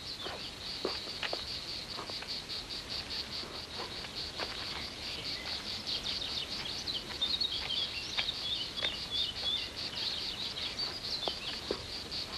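Insect chirping, most likely crickets, in an even high-pitched pulse of about five chirps a second. Birds chirp briefly among it in the middle, and a few faint clicks come now and then.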